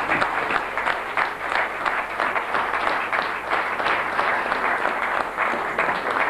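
An audience applauding, many hands clapping steadily throughout.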